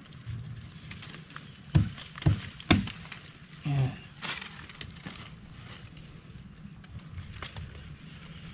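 Machete chopping through a thin wooden pole: three sharp chops in quick succession about two seconds in, then softer rustling and knocks as the cut stick is handled among the leaves.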